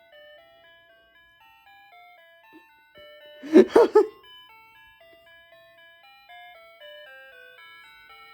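Wireless doorbell chime playing a long electronic tune, one thin beeping note after another. A short loud burst of a voice cuts in about three and a half seconds in.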